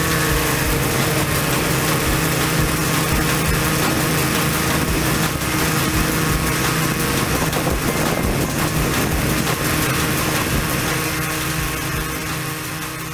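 X-class multirotor drone's electric motors and propellers whirring steadily in flight, heard close up from the onboard camera, with a steady hum over a rushing noise. The sound eases off slightly near the end.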